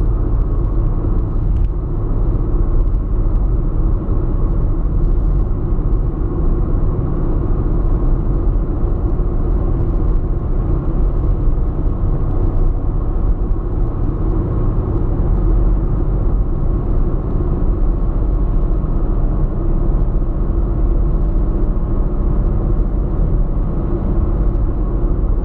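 Steady in-cabin noise of a car cruising on a highway: a low rumble of road and engine noise with no changes, picked up by a windscreen-mounted GoPro's built-in microphone.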